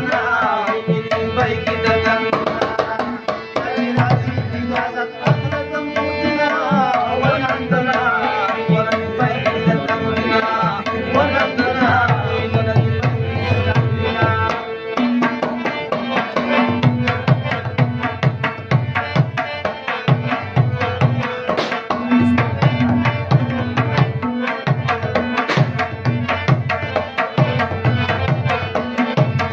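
Ghazal music: a harmonium plays a melody over a steady held drone note, and a tabla keeps a fast, dense rhythm with deep bass strokes throughout. A voice sings briefly in the first half.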